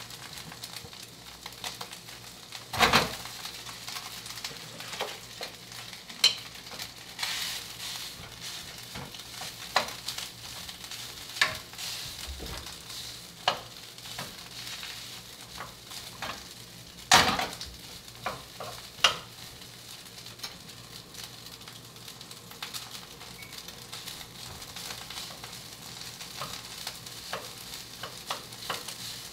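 Karaage (Japanese fried chicken) sizzling in a frying pan as it is stirred, giving up its meat juices, with a spatula knocking sharply against the pan every few seconds, loudest about three seconds in and again about seventeen seconds in.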